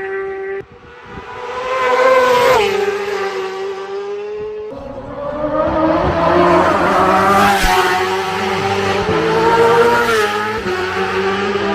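Road-racing motorcycles passing at high speed one after another, each engine's high whine rising and then dropping in pitch as it goes by. The sound cuts off abruptly under a second in, and again just before the halfway point.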